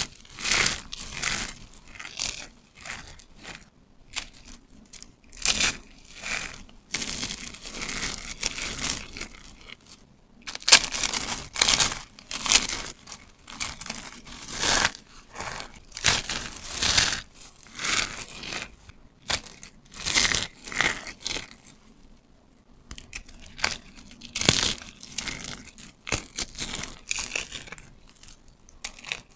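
Hands squeezing and crumbling dry, brittle bars of soap and soap cubes into flakes: crisp crunching and crackling that comes in repeated squeezes, with brief lulls between them.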